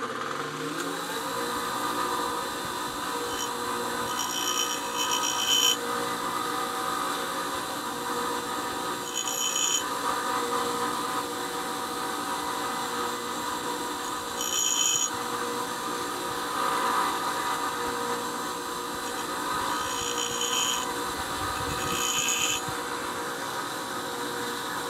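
Bench grinder running steadily after spinning up with a rising whine in the first second, with several short bursts of grinding as a steel drill bit is touched to the wheel's edge to thin its web.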